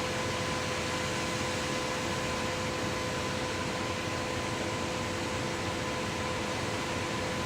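Concrete pump running steadily: an even mechanical noise with a constant whine over it, with no strokes or knocks standing out.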